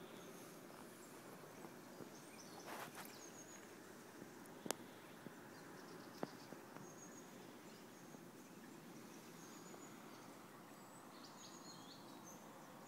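Quiet outdoor ambience: a steady faint hiss with scattered faint high chirps. A brief rustle comes about three seconds in, then two sharp clicks, about five and six seconds in.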